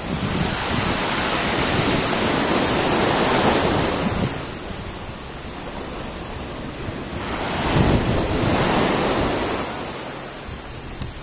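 Small waves breaking and washing up a sandy beach: a surge of surf over the first few seconds and a second one about seven seconds in, with wind rumbling on the microphone.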